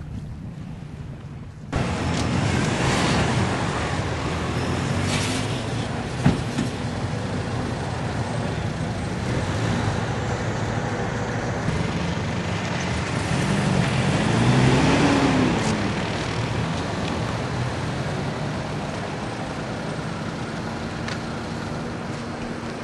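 Road traffic: car and truck engines running and passing by, with one sharp knock. A little past the middle, one vehicle's engine rises and then falls in pitch as it goes by.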